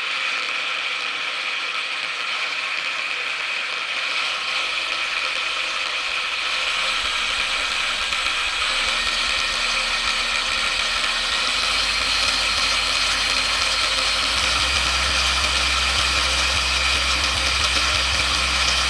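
A battery-powered tool's electric motor running steadily, with a hum that steps up in several stages as it is switched up through its speed levels.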